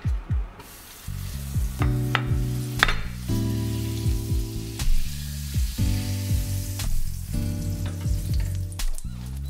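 Butter sizzling as it melts in a small rectangular frying pan on low heat. Background music with deep bass thumps and held chords comes in about a second in and is the loudest sound.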